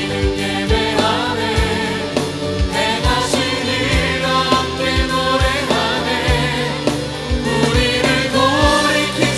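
Contemporary worship music: a choir of voices singing over a band, with a steady kick-drum beat about twice a second.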